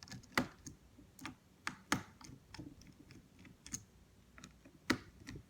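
Small screwdriver clicking and tapping against laptop keyboard screws and the keyboard's plastic as the screws are loosened: irregular sharp clicks, three of them louder.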